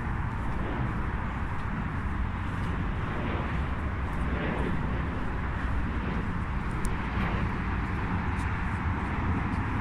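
Steady outdoor traffic noise with a constant low rumble and a couple of gentle swells, as of vehicles passing.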